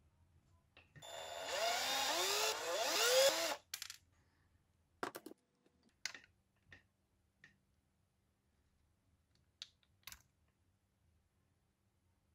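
A small fast-spinning mechanism whirs for about two and a half seconds, rising in pitch in several quick spurts, then stops suddenly. A few light plastic clicks and taps follow as parts are handled.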